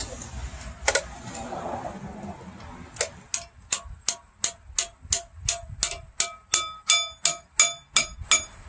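Metal being tapped or struck with a tool in an even rhythm of about three strikes a second, starting about three seconds in. The later strikes ring.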